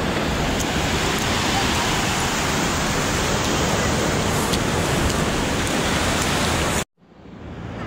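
Steady rushing noise of surf at the beach's edge. It cuts off abruptly near the end and fades back in.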